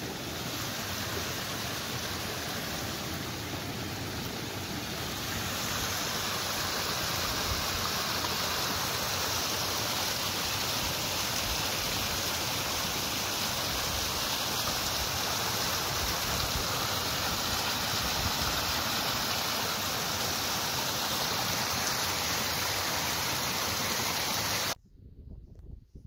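Small mountain stream rushing over a little cascade: a steady wash of water. It grows louder about five seconds in and cuts off suddenly near the end.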